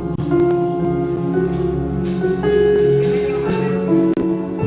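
Worship music with sustained chords and a few percussion hits.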